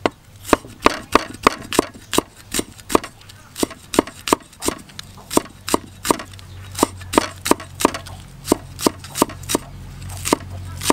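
Steel cleaver chopping green onion on a round wooden chopping board: a steady run of sharp knocks, about three a second.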